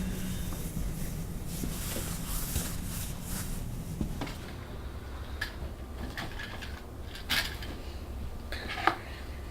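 Scattered clicks and knocks of household objects being handled, like dishes, drawers or cupboard doors, over a low steady hum.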